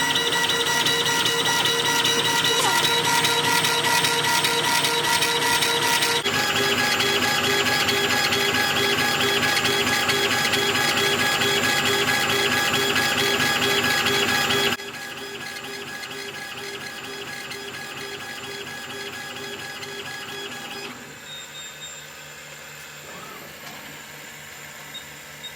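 CO2 laser engraving machine with a rotary attachment running: its stepper motors whine at several steady pitches with a fast, even pulsing. The pitch shifts about a quarter of the way in. The sound drops much quieter a little past halfway and fainter again later.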